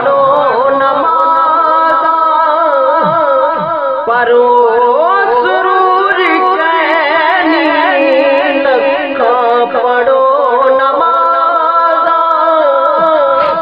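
A man singing a devotional naat solo, unaccompanied, in long held notes that waver and glide from pitch to pitch.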